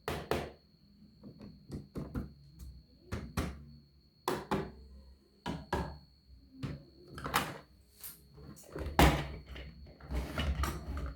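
A series of irregular knocks and thuds, roughly one a second, with the loudest about nine seconds in. They sound like objects being handled and set down. A faint steady high-pitched tone runs beneath.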